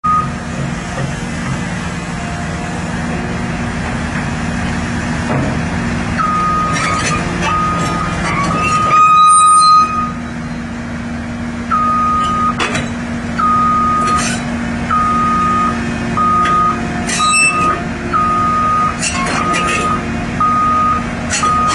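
Caterpillar 319D LN hydraulic excavator running steadily on its diesel engine while travelling, its travel alarm beeping: a held tone about nine seconds in, then beeps about once a second. Several sharp metallic knocks come through over it.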